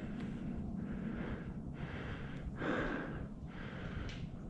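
A man breathing hard and fast, a rapid string of loud inhales and exhales about one a second, the heavy breathing of a hunter just after shooting a deer.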